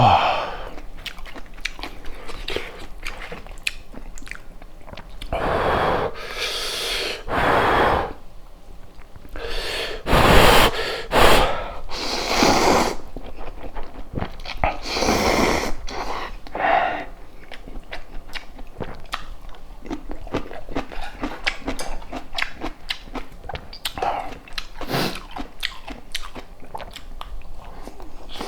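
Close-miked mouth sounds of a person eating a rice burger and cup ramen: steady chewing and small wet clicks. Several louder, noisy stretches of a second or two come about six, ten to thirteen and fifteen seconds in.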